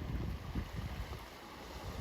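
Wind buffeting the microphone in uneven low gusts, over a steady hiss of water.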